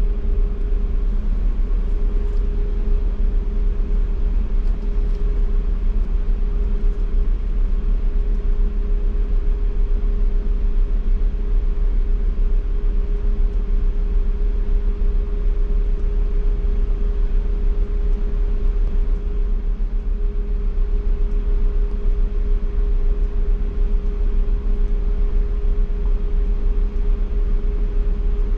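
Ferry's engines droning steadily, a deep rumble with a constant hum over it.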